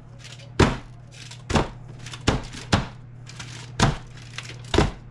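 A springform pan of cheesecake batter knocked down against the countertop six times, about a second apart, to bring air bubbles up out of the batter. A steady low hum runs underneath.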